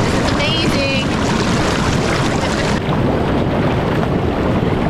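Hot tub jets churning the water: a steady, loud rush of bubbling water.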